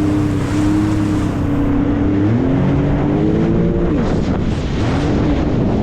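Jet ski engine running at speed, with wind noise on the microphone. The engine note holds steady, then climbs and falls a couple of times as the throttle changes.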